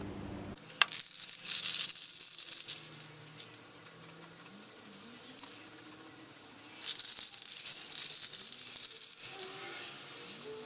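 Aerosol spray-paint can in use: two loud bursts of hiss and rattle, starting about a second in and about seven seconds in, each lasting about two seconds.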